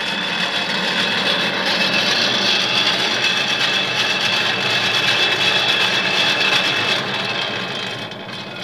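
Hand-cranked blower forcing air into the firebox of a wood-fired mud stove to liven the fire: a steady whirring whine over rushing air. It eases off about seven seconds in.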